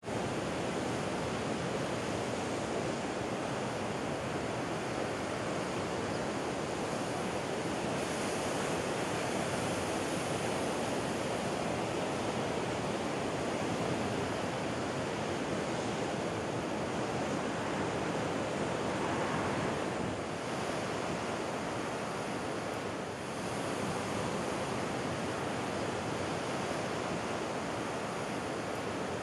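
Heavy winter ocean swell breaking on rocks and washing through the rocky shallows: a steady, continuous rush of surf, with brief lulls about two-thirds of the way through.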